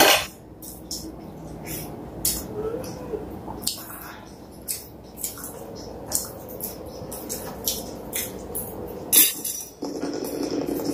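Close-miked eating sounds of dhido eaten by hand: wet chewing and smacking, with short irregular clicks several times a second and fingers scraping food on metal plates.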